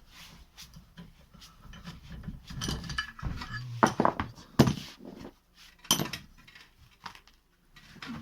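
Metal tools and parts clinking and clattering, with a few sharp knocks about four, four and a half and six seconds in.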